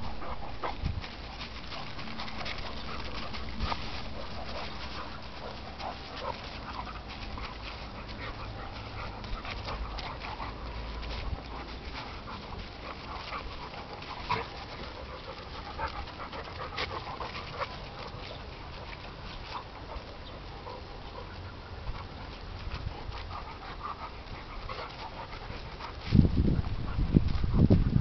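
Two dogs, an English pointer and a German shorthaired pointer, tussling: panting with many quick sharp clicks of movement throughout. About 26 seconds in, loud low thumping sets in.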